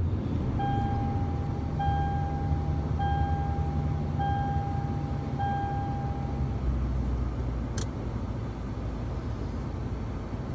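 A vehicle chime in the cabin of a Toyota Tundra dinging five times at an even pace, one steady pitch each about a second long, over the steady low hum of the truck's engine running. The dings stop a little past halfway.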